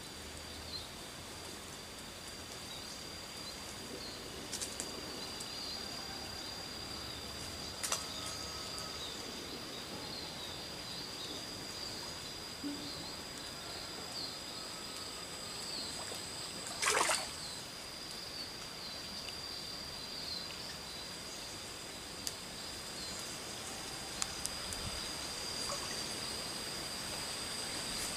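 Water trickling in a small stream under a steady, high insect drone, with a few faint clicks and one short burst of noise about seventeen seconds in.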